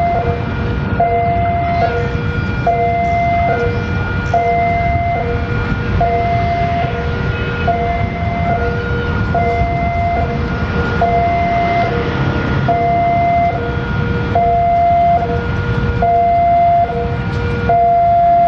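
Railway level-crossing warning alarm sounding its two-tone signal: a higher and a lower tone alternate evenly, each lasting just under a second, over a steady low rumble.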